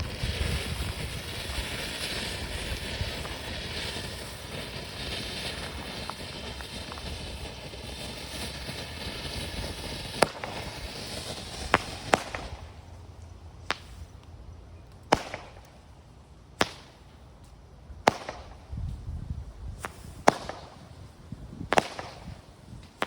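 Hybrid firework fountain spraying with a steady hiss for about twelve seconds, then shooting up stars with a series of sharp pops, one about every second and a half.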